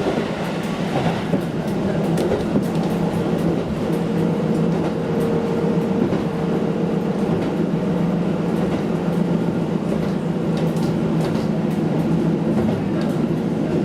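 KiHa diesel railcar running along the line: a steady drone of engine and running gear with a held low hum and a higher tone, and faint clicks from the wheels over the rails.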